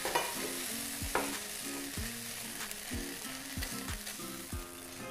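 Besan (gram flour) sizzling as it roasts in a nonstick pan after a sprinkle of water, while a spatula stirs and scrapes through it, with a few sharper scraping strokes.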